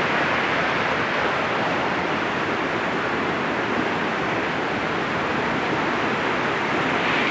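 Flooded river water rushing in a steady, unbroken roar of noise.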